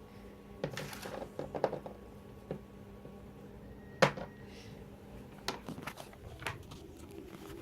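Small plastic toy figures and their stand pieces being handled, giving scattered clicks and taps, with a brief rustle about a second in and one sharp click about four seconds in.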